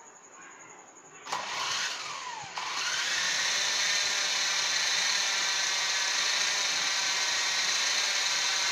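Small electric motor and rotor of a radio-controlled toy helicopter starting up about a second in. A brief falling tone is followed by a steady high-pitched whine as it runs at speed.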